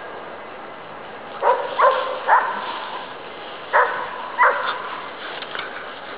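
A pit bull-type dog barking five times, in two groups: three quick barks about a second and a half in, then two more near the middle.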